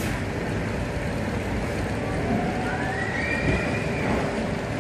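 Steel roller coaster train rumbling along its track, with a faint high cry rising and then holding from about two and a half seconds in.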